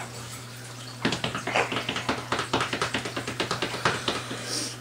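Paper towel rustling and crinkling as it is wiped over a face and crumpled in the hands: a dense run of quick crackles starting about a second in. A steady low electrical hum runs underneath.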